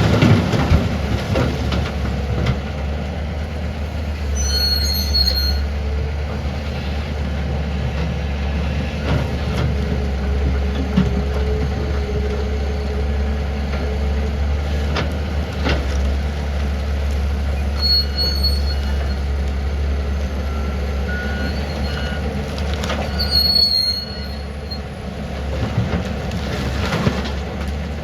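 Tata Hitachi 470 excavator's diesel engine running steadily under work, with a few short, high metallic squeals and a drawn-out whine in the middle.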